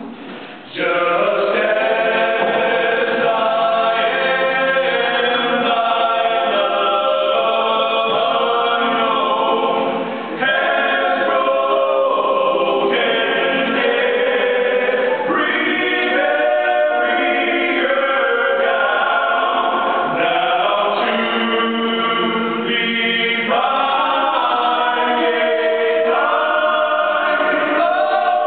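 A small group of men singing a cappella, several voices together in harmony with no instruments. The singing starts about a second in and pauses briefly near the middle.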